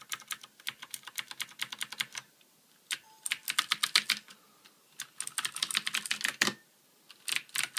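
Typing on a Ducky Shine 2 mechanical keyboard with Cherry MX Blue switches: quick runs of noisy key clicks, almost like a typewriter, broken by short pauses about three times.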